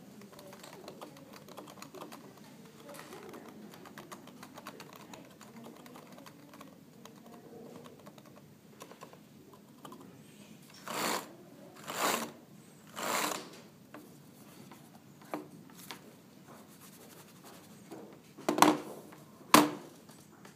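Typing on a Topre REALFORCE89S keyboard with Topre electrostatic capacitive key switches. Soft, quick key clicks come first; about halfway there are three louder short clatters of keys, and near the end two sharp, loud key strikes.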